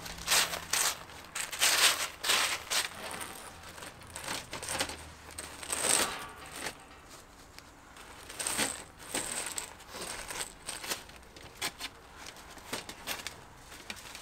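Fine gravel crunching and scraping under gloved hands as a corrugated plastic conduit is dragged across it and worked into place, in irregular scrapes and rustles.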